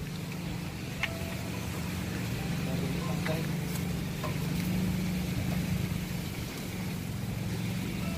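Steady low engine drone that swells slightly around the middle, with a few faint ticks over it.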